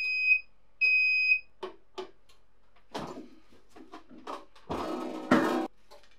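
Heat press temperature controller beeping twice in a high electronic tone, the signal that the pressing time is up. Then come two short knocks and handling noise as the clamp lever is released and raised, and a loud rustling burst near the end as the sublimation transfer paper is peeled off the plate.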